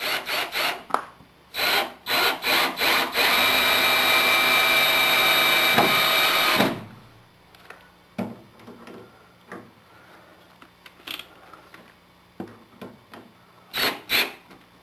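Power screwdriver driving pan head screws through the plastic shower base's flange into the studs. Several short bursts, then a steady run of about three seconds that stops suddenly. After that come a few light clicks and knocks.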